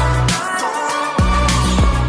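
Background music with a beat and deep bass notes that drop sharply in pitch.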